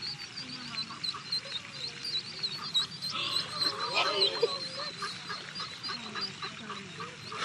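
Ducklings peeping: a rapid, continuous stream of short high chirps, with a brief louder burst of sound about four seconds in.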